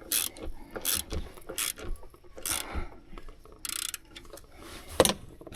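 A ratchet wrench clicking in short, irregular strokes as a 10 mm hex bolt is tightened.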